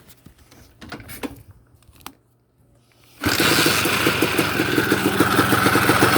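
A 1987 Honda TRX250R's two-stroke single-cylinder engine catches about three seconds in, after a few faint knocks, then runs with a fast, regular beat. The owner takes the deep noise in it for a failing crankshaft, not piston slap.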